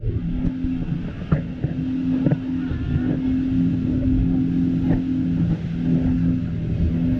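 Speedboat engine running at a steady pitch, with a few short thumps about a second apart in places.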